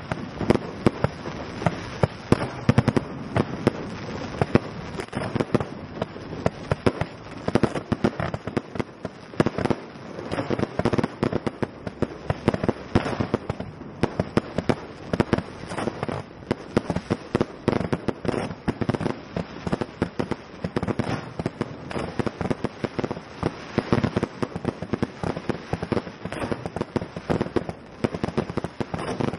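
Fireworks exploding in quick, irregular succession, several sharp bangs a second overlapping one another without a break.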